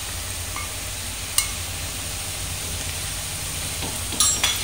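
Chopped onion and green chilli frying in oil in a metal kadhai, a steady low sizzle. A single light click comes about a second and a half in, and a steel spatula clatters and scrapes against the pan near the end.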